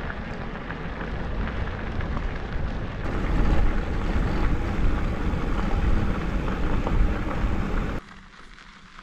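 Wind rumbling over the microphone and tyres rolling on a gravel road while a loaded bikepacking bike is ridden; the noise gets louder about three seconds in and drops to a much quieter background near the end.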